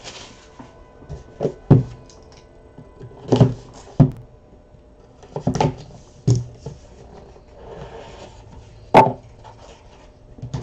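A cardboard trading card box being handled and opened on a table: scattered knocks and taps of the box being set down and turned over, a brief rustle of cardboard about 8 seconds in, and a sharper knock about 9 seconds in.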